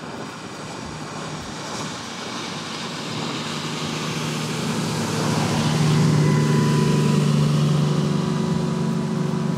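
Fast workboat's engines running at high speed as it passes close by, growing louder to a peak about six seconds in, a steady engine hum over the rush of its wash.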